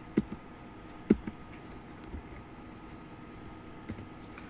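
A few isolated computer keyboard key presses, single sharp taps spaced irregularly, over a faint steady hum.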